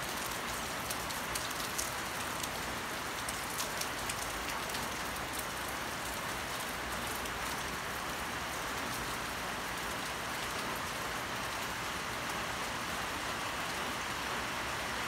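Steady light rain shower falling, a continuous even hiss with scattered sharp drip ticks during the first several seconds.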